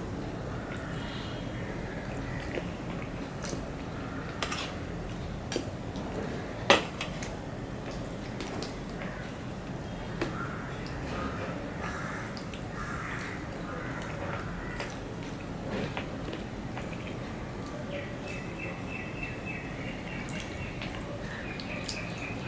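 A hand mixing rice and fish curry on a steel plate: soft wet squishing, with occasional light clicks of fingers against the metal and one sharper click about seven seconds in. Near the end there is a faint run of rapid chirps.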